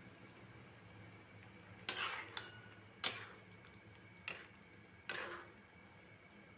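A flat metal spatula scraping and knocking against an aluminium kadhai while methi (fenugreek) bhaji is stirred: five short clatters, two of them drawn out into brief scrapes.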